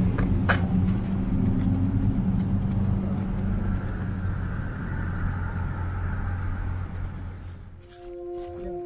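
A road vehicle's engine running close by, a steady low hum with a swell of broader noise in the middle. It fades away near the end.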